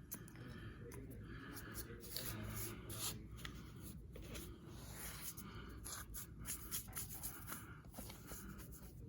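Knife trimming excess carpet along an edge: faint, irregular scratchy cutting strokes through the carpet, with small clicks between them.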